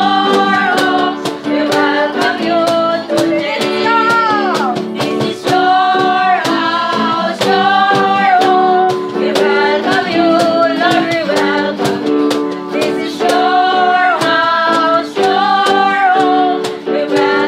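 A group of women singing a song together to strummed acoustic guitar accompaniment, the guitars keeping a steady strumming rhythm under the voices.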